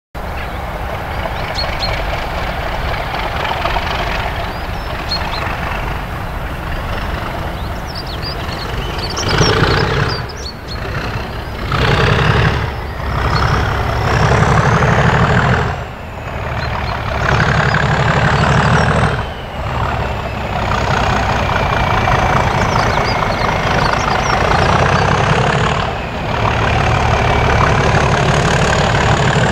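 English Electric V12 diesel engine of a Class 37 locomotive working hard as it approaches with a train, a deep heavy rumble whose loudness swells and dips several times.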